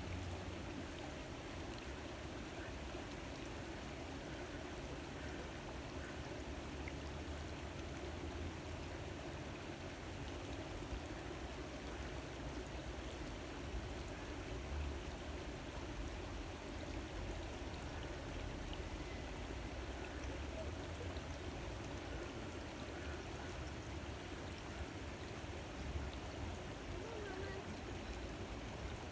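Stream water running steadily, with a low rumble underneath.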